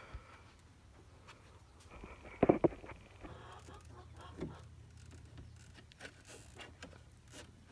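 Hands handling a stiff plastic cone cut from a bucket while it is zip-tied, with scattered light clicks and scrapes. A brief, much louder clatter comes about two and a half seconds in.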